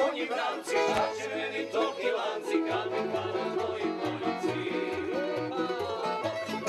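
Background music: an upbeat bluegrass-style tune on plucked strings, banjo and mandolin over a walking bass.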